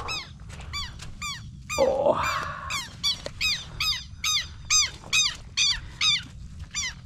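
An animal calling over and over: short, high-pitched calls about three a second, each rising and falling in pitch. About two seconds in, a louder, lower sound cuts across them.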